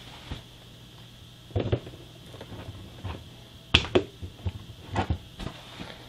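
A few scattered knocks and rubs from handling painted road wheels of a 1/6-scale model tank, rubber-tyred wheels picked up and set down on a cardboard-covered bench, over a faint steady hum.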